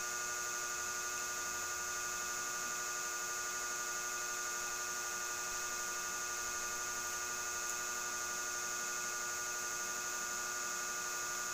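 Electric fan running with a steady hum and a high hiss, unchanging throughout.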